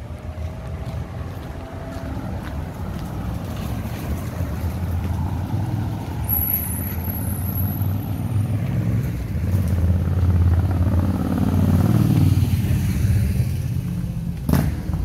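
City street traffic: motor vehicles running past, one growing louder and passing close about ten to twelve seconds in. A brief high squeal about six seconds in and a single sharp knock near the end.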